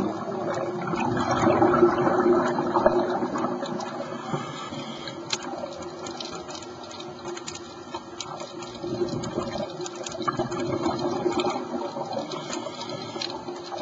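Scuba diver's exhaled bubbles gurgling and rushing, heard underwater, in two long surges: one about a second in and another near ten seconds in. Sparse faint clicks run underneath.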